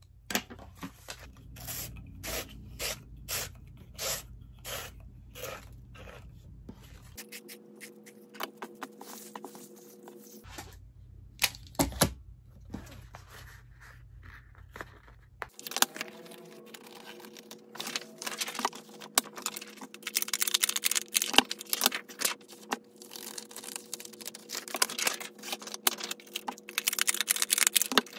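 Sheets of printed paper being handled at a table: a run of about nine evenly spaced scratchy strokes in the first seven seconds, a sharp click about twelve seconds in, then a long stretch of dense paper rustling and shuffling.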